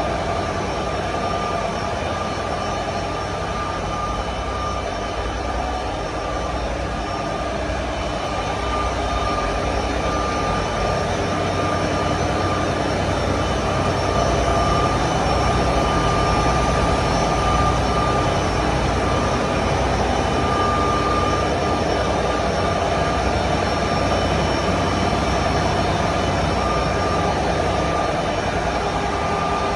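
Engine-room machinery of a river towboat running: a steady, loud drone with a constant high whine, growing a little louder partway through.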